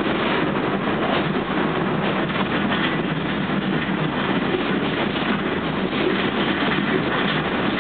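New York City subway train running along the track: a steady rumble of wheels and motors on the rails, with a few faint clicks.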